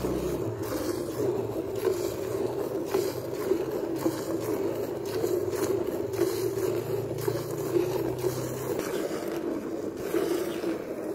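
Water buffalo being milked by hand into a steel bucket: milk squirts hitting the froth in a steady rhythm, about one a second, over a steady low drone.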